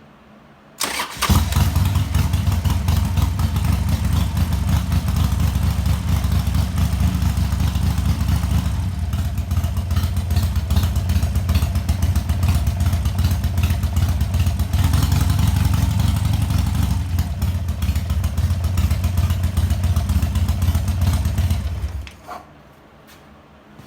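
2005 Harley-Davidson Sportster XL 1200's V-twin engine started with the choke pulled out, catching about a second in and running at a steady idle, then switched off about 22 seconds in.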